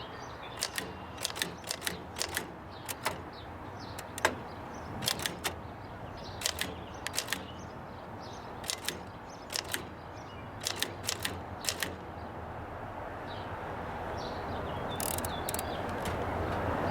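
Oliver No. 9 typewriter typing: irregular sharp key strikes, single and in quick clusters of two or three, for about twelve seconds. Then the strikes stop and a steady hiss grows louder to the end.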